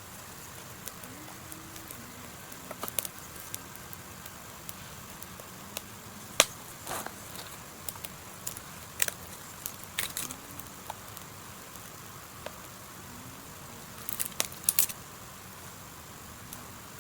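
Dry twigs and kindling snapping and crackling in scattered sharp cracks, in clusters around a third of the way in, near the middle and in the last few seconds, over a faint steady hiss.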